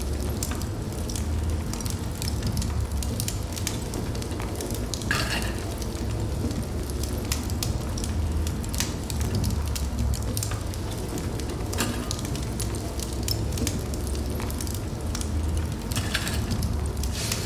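Wood fire burning in a fireplace, crackling steadily with sharp pops scattered irregularly over a low rumble, and a short hiss about five seconds in.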